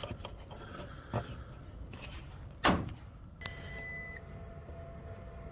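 Small handling clicks and one louder knock, then a multimeter's steady electronic beep lasting under a second, as when the meter is switched on or the probes find continuity across a furnace limit switch. A fainter steady tone carries on after it.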